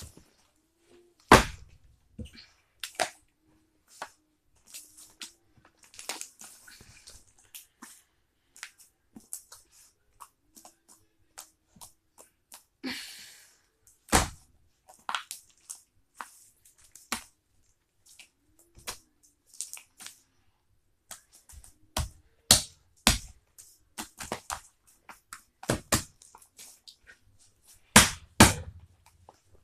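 Fluffy shaving-cream slime being squished and stretched by hand, giving sharp pops, clicks and small slaps at irregular intervals. A few louder snaps come about a second and a half in, around the middle, and twice near the end.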